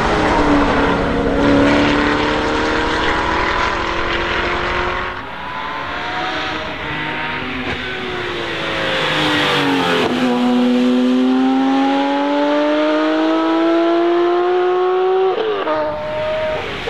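Two performance-car engines pulling hard up a hill climb. First the Eadon Green Zeclat's 6.2-litre Chevrolet LT1 V8 rises steadily in revs as it accelerates past. About five seconds in, a Porsche 911's flat-six takes over: its pitch falls, then climbs hard under acceleration and drops suddenly near the end at an upshift.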